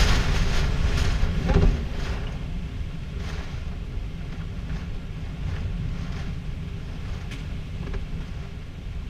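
Storm wind and rain against a house window during a tornado-warned thunderstorm: a heavy low rumble that is loudest for about the first two seconds and then eases, with a few scattered ticks on the glass.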